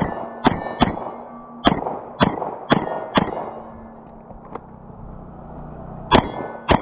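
A string of pistol shots at steel targets, each shot with the ring of steel plates. Seven shots come in quick succession, then after a pause of about three seconds two more follow near the end.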